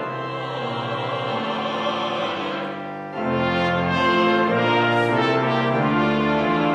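Pipe organ with trumpet and French horn accompanying a vocal quartet in a hymn. About three seconds in, the music swells louder as the refrain begins.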